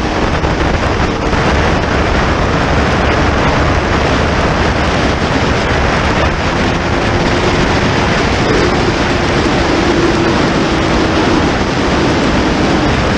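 Steady, heavy wind rush on the camera's microphone from a motorcycle at speed on track. A faint engine note runs under it in the second half.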